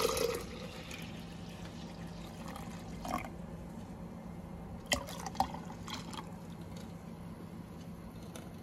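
Milk pouring into a glass jug: a full pour at first that dies down within half a second to a thin trickle, with a few faint ticks about three and five seconds in, over a low steady hum.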